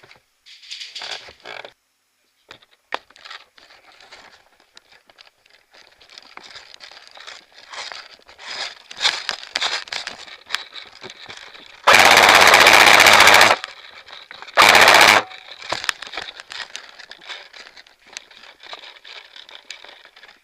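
An airsoft rifle firing two full-auto bursts at close range: a long one of about a second and a half, then a short one a second later, each a rapid, even stream of shots. Around them, faint rustling and clicking of movement.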